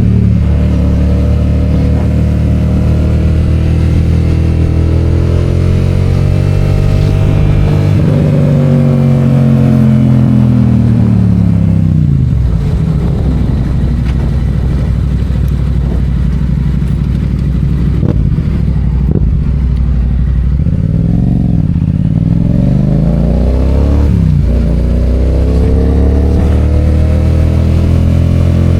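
Yamaha FZ-07's parallel-twin engine under way: it pulls steadily, then drops in pitch as the bike slows, runs low for several seconds, and climbs again through the gears with a shift near the end.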